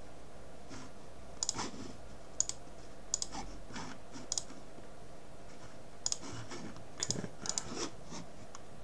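Computer mouse clicking: a series of short sharp clicks, several in quick pairs.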